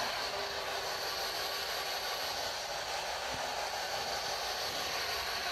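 Steady hiss of radio static from a spirit box (ghost box) scanning radio stations, left running while the room waits for an answer to a question put to a spirit.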